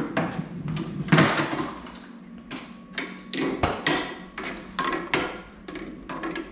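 Irregular knocks, clicks and clatter of a walk-behind lawn mower being handled, its handle and frame knocking, about a dozen sharp hits with the loudest about a second in.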